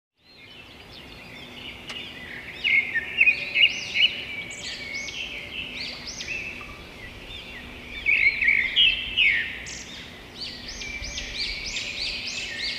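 Many small birds chirping and twittering together in quick, overlapping arching notes, fading in at the start, with louder spells about three seconds in and again around eight to nine seconds.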